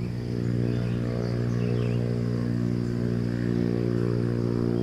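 A small engine running steadily at a constant speed, with an even hum that does not change.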